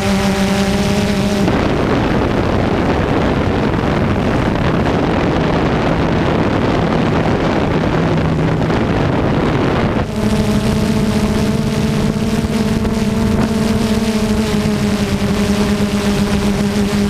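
A camera drone's motors and propellers humming with a steady pitched tone. From about a second and a half in until about ten seconds in, wind rushing over the microphone drowns out the hum, which then returns.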